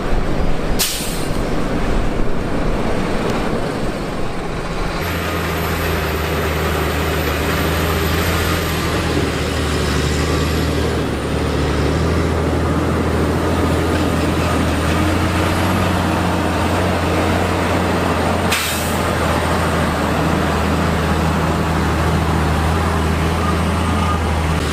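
Heavy truck engine running steadily, with a low drone that settles in about five seconds in. Two brief sharp noises come through, about a second in and near the end.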